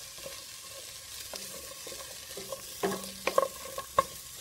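Sliced white onion rings sizzling as they fry in a non-stick pan without oil, stirred with a spatula. In the second half there are several sharp knocks as the spatula strikes the pan, the loudest near the end.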